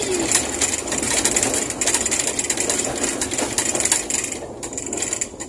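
Fiat 147 race car driving, heard inside its stripped cabin: the engine running under a dense, fast mechanical clatter of rattles, easing off somewhat about four seconds in.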